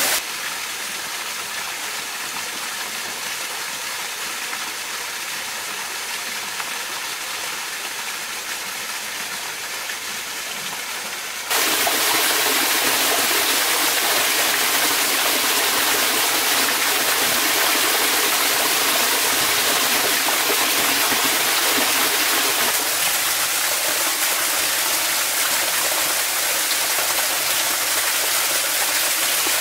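Steady rush of a small waterfall splashing into a shallow pool. About eleven seconds in, the sound cuts abruptly to a louder, fuller rush of running water.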